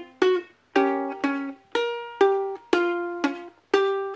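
Ukulele strummed in a chord progression, about two chords a second, with the chord changing from strum to strum and some strums damped short.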